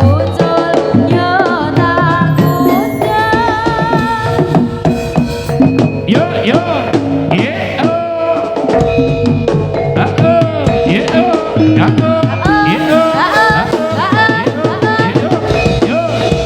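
East Javanese jaranan sentherewe music played loud and continuous. Hand drums beat a steady rhythm under a wavering pitched melody line.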